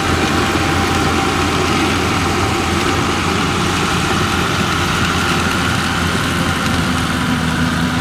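Yanmar YH850 combine harvester's diesel engine running steadily under load as the machine cuts lodged rice at speed.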